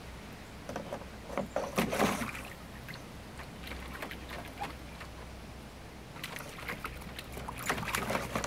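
A corgi splashing through shallow water in a plastic kiddie pool: two spells of sloshing and splashing, about a second in and again near the end, with a few softer splashes between.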